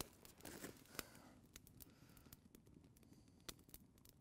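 Near silence, with a few faint sharp pops from a small wood campfire crackling, the loudest right at the start.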